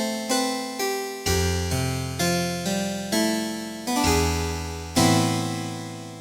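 Casio CTK-4200 arranger keyboard playing a melody over chords on one of its built-in piano-family voices, with a sharp attack on each note, about two notes a second. About five seconds in it strikes a final, louder chord that rings out and fades.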